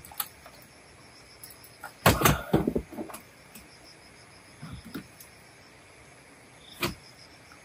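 Knocks and clatter of a folding camp chair and other gear being packed into an SUV's cargo area: a loud cluster about two seconds in, then lighter knocks around five and seven seconds. Insects chirp steadily in the background.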